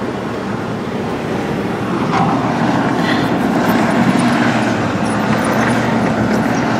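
Excavator's diesel engine running steadily, getting a little louder about two seconds in.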